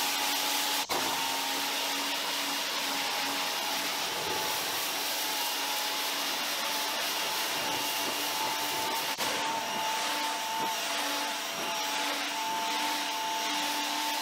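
Active VE52 electric pressure washer running steadily, its motor and pump humming under the hiss of the water jet spraying on a brick wall. The sound breaks off for a moment twice, about a second in and about nine seconds in.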